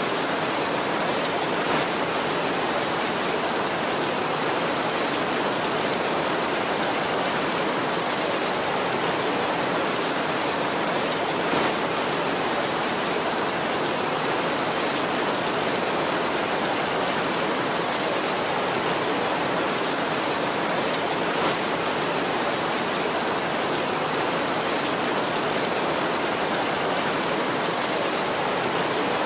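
Steady heavy rain with no thunder, an even hiss that does not let up. Three brief louder ticks stand out, roughly ten seconds apart.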